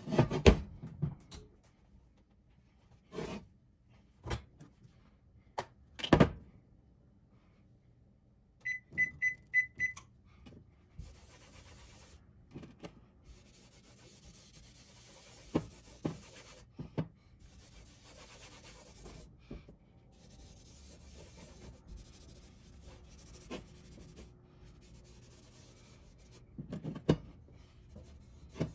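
A cloth rubbing oil over the surface of a cast iron griddle in stop-start strokes. Near the start there are heavy clunks as the cast iron griddle is set down on a glass stovetop, and about nine seconds in there is a run of about five quick electronic beeps.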